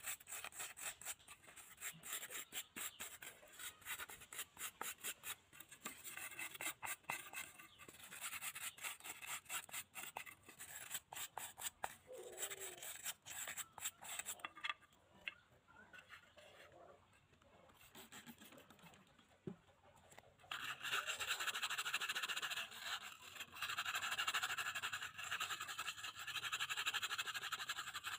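Hand scrubbing of a rusty metal pan with a small red-backed brush: rapid scratchy back-and-forth strokes, turning into a louder, steadier scrubbing about twenty seconds in.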